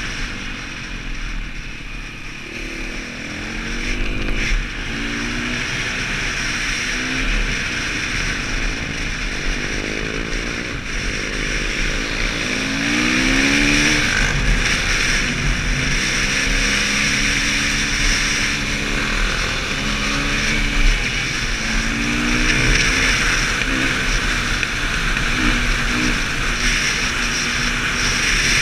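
A 450 cc single-cylinder four-stroke dirt bike engine running under way, its pitch rising and falling repeatedly as the rider works the throttle and gears, with the strongest rise about halfway through.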